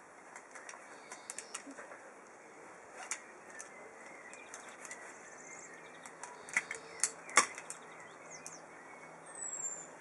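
Scattered clicks and clinks of metal rope-access hardware being handled, loudest in a cluster about seven seconds in. A bird gives a short falling whistle near the end.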